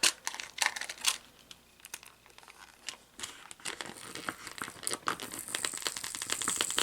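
Plastic packaging and tape crinkling and crackling as they are handled and peeled back to free taped-down screws, with scattered sharp clicks in the first seconds and a denser crackle from about four seconds in.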